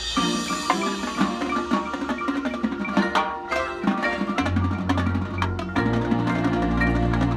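High school marching band playing its show: many fast mallet-percussion notes from the front ensemble's marimbas and other keyboards, with drums. Low held notes come in about four and a half seconds in and swell about a second later.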